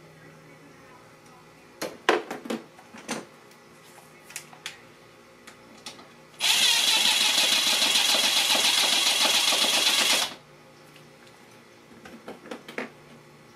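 Cordless drill running steadily at full speed for about four seconds, starting and stopping abruptly, with tool-handling clicks and knocks before and after it.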